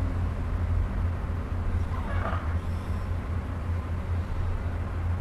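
Steady low hum over a soft, even hiss of background noise, with a faint brief sound about two seconds in.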